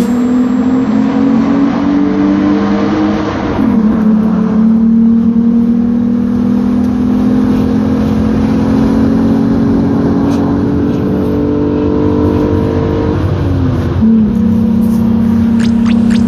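VW Passat 35i's VR6 engine pulling through the gears in a tunnel. Its drone climbs slowly in pitch, dropping at a gear change about four seconds in and again about thirteen seconds in.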